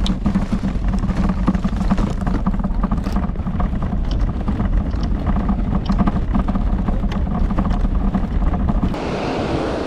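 Rumble and rattle of a loaded fishing cart rolling over pavement, with many small clicks and clatters from the gear. About nine seconds in it cuts to the steady wash of ocean surf.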